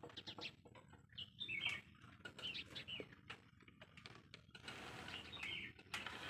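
Faint clicks and knocks of a ring light being handled and fitted onto its metal tripod stand, with a few faint high chirps in the background.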